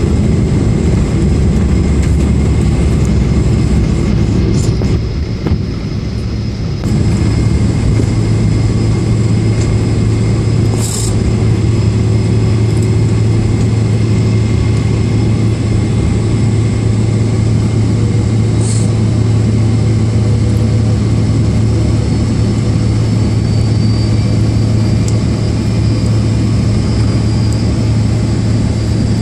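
Cabin noise of a Boeing 777-300ER rolling along the runway after touchdown, its GE90 engines' thrust reversers deployed: a loud, steady low drone and rumble that eases briefly about five seconds in.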